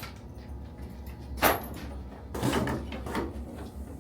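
A sharp knock about a second and a half in, then a short burst of knocking and scraping as a plumbing line is worked loose and pulled out.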